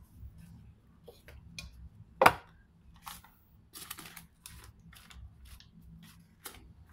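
Hands handling bread dough and crinkling a paper butter wrapper while pulling butter off it into the bowl: scattered rustles and crackles, with one sharp knock about two seconds in.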